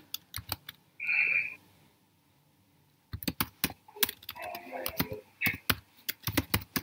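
Computer keyboard typing in quick runs of keystrokes, stopping for about a second and a half partway through.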